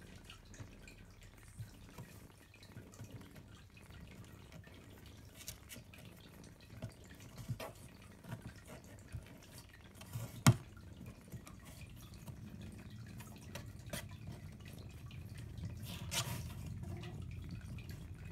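Siberian kittens suckling at their mother, a scatter of small wet clicks and smacks, with one sharper click about ten seconds in. A low steady rumble sits underneath and grows louder in the second half.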